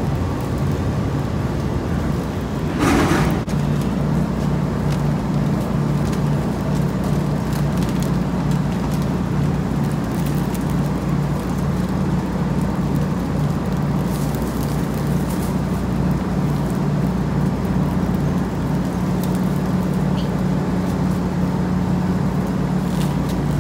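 Ferry engine droning steadily under the deck, with a brief rush of noise about three seconds in.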